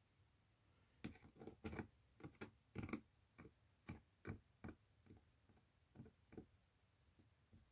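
Faint, irregular ticks and clicks of a fine screwdriver tip picking stray ballast stones out from between the rails and blades of a model railway point. The clicks come unevenly, two or three a second, and stop about a second before the end.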